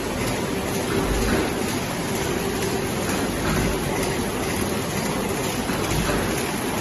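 Automatic-feeding flow pack wrapping machine running: a steady mechanical noise from the conveyor line with a faint steady hum.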